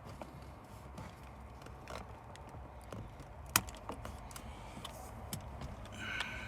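Scattered small clicks and rattles of hands working loose plastic trim and parts around a car's steering column, with one sharp click about three and a half seconds in.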